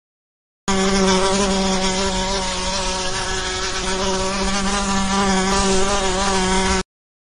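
A flying insect's wings buzzing steadily at a low, even pitch for about six seconds, starting and cutting off abruptly.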